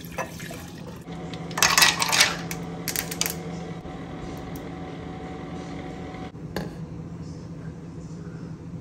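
Iced coffee being made in a ceramic mug: liquid poured in, with a loud clatter of ice cubes dropping into the mug about two seconds in, then more pouring and a sharp click about six and a half seconds in. A steady low hum runs underneath.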